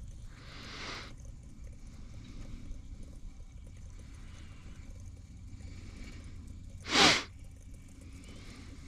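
A soft whoosh about a second in, then a loud, short, sharp swish near the end, over a low steady rumble.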